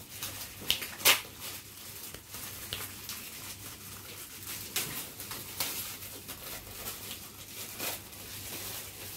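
Shiny plastic gift wrapping crinkling and rustling as it is pulled open by hand, with a sharp crackle about a second in and a few more scattered through.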